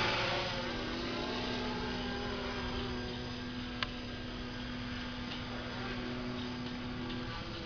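V-tail radio-controlled model airplane's motor and propeller droning as it passes overhead and flies off, the pitch dropping at the start and then holding steady. A single sharp click about four seconds in.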